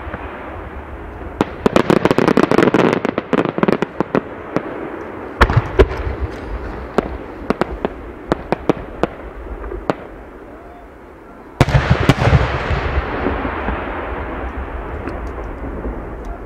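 Aerial fireworks shells bursting: a dense run of booms and sharp crackles between about one and a half and four seconds in, scattered cracks after that, then a heavy boom about eleven and a half seconds in with a rumbling echo that slowly fades.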